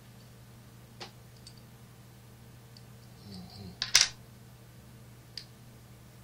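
Hands working small metal jaw-harp parts over a wooden board: a few light clicks, then about four seconds in a sharp clatter as pieces are put down on the board, the loudest sound, and one more click soon after. A steady low hum runs underneath.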